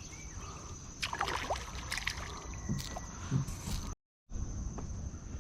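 Scattered knocks, clicks and rustles of gear being handled in a Tucktec folding kayak, over low water noise and a thin steady high whine. The sound cuts out completely for a moment about four seconds in.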